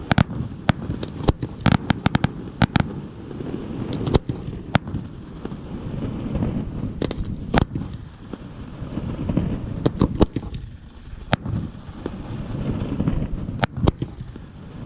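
Giordano fireworks display: many sharp bangs of bursting shells, some in quick clusters, over a continuous low rumble of further explosions.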